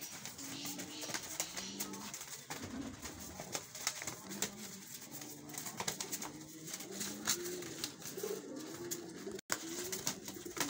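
Pigeons cooing over and over in low, wavering calls, with scattered sharp taps and wing flutters as a Lotan roller pigeon tumbles on the concrete floor.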